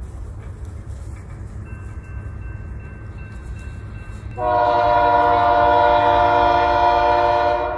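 BNSF freight locomotive's air horn sounds one long chord of about three seconds, starting abruptly about halfway through and cutting off near the end, over a steady low rumble.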